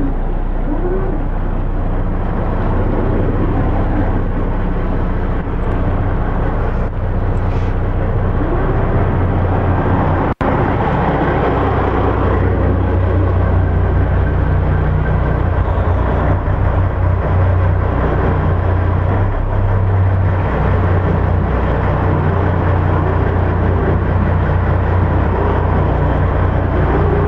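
The motor yacht's marine diesel engines running at idle, a steady low rumble.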